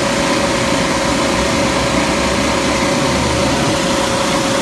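Refrigerant recovery machine running steadily, a constant hum with a steady whine on top, drawing the last of the R22 out of the system.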